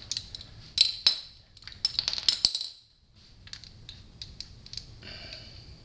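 Metal clinks and clicks of a ratchet and hex bit socket against a motorcycle's rear brake caliper as the caliper pin is unscrewed. Two sharp clinks about a second in, a quick cluster of them around two seconds, then lighter scattered ticks.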